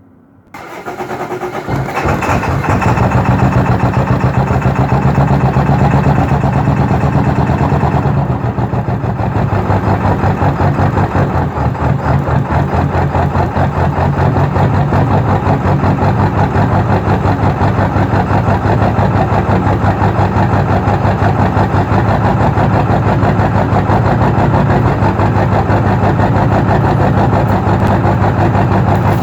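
Ford 7.3 L Power Stroke V8 turbo diesel of a 2002 F-350 Super Duty starting cold: it fires about half a second in, builds up over a couple of seconds, then runs with a steady, loud, rhythmic diesel clatter. It is a hard cold start, which the owner puts down to a bad glow plug relay.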